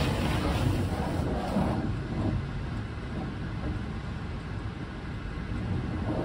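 Truck wash running, water spraying over a semi-truck, heard from inside the cab as a steady noise with a heavy low rumble. It is a little louder for the first couple of seconds, then settles.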